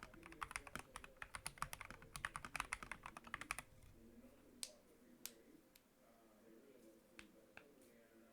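Typing on an FL eSport MK870 mechanical keyboard with Akko Rose Red linear switches and PBT XDA keycaps: a fast, even run of keystrokes that stops about three and a half seconds in, followed by a few single key presses.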